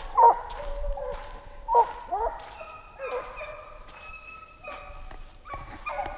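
Hunting hounds baying and yelping while running a fox: a string of short cries that bend in pitch, with some longer held notes in the middle.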